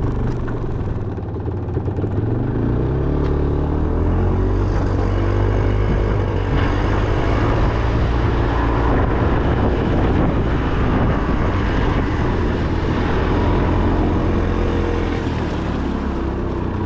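A vehicle engine running close by, picking up speed in the first few seconds and then holding a steady note.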